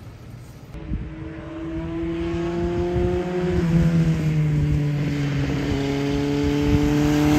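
Kawasaki Z1000J's air-cooled inline-four engine running on the track, coming in about a second in and growing steadily louder as it approaches. Its pitch sags a little midway, then climbs near the end as it pulls harder.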